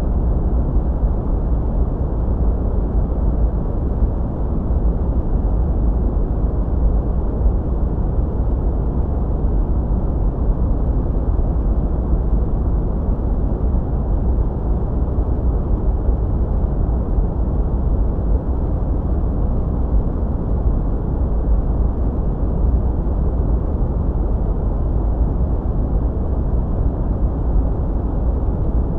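Steady sleep noise, a deep, muffled hiss and rumble that is heaviest in the bass and has almost no high end, unchanging throughout.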